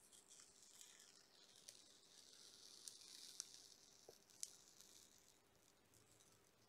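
Protective plastic film being slowly peeled off the front glass of an Azure Kinect DK camera: a faint, soft crackling hiss with a few small ticks, dying away about five seconds in.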